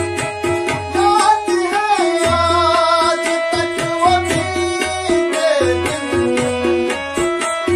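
Harmonium and tabla playing a song with a steady tabla rhythm under the harmonium's held notes. A man's voice sings a long, wavering, ornamented line from about a second in until about five and a half seconds.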